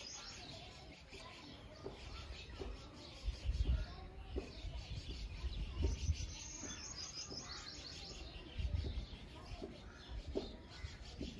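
Faint birdsong: scattered chirps and short high twitters, with a few low rumbles.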